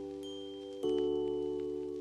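Background music: gentle held chords with light bell-like notes on top, a new chord struck a little less than a second in.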